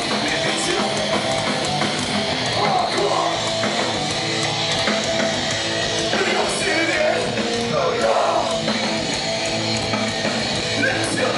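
Hardcore punk band playing live at full volume, led by strummed electric guitars.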